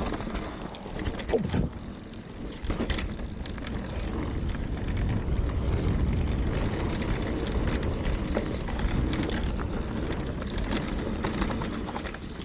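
Mountain bike riding fast down a dirt trail: wind rumbling on the camera microphone over the sound of the tyres on dirt and dry leaves, with scattered clicks and knocks as the bike rattles over bumps.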